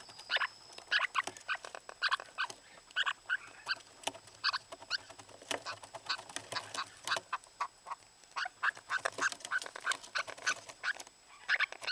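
Lineolated parakeet calling in breeding season: a rapid, continuous run of short chirps and chatter, several notes a second.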